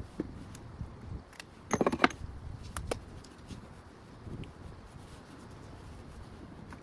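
Handling noises: a brief metallic jingle with several sharp clicks about two seconds in, a single click a second later, and low rustling in between.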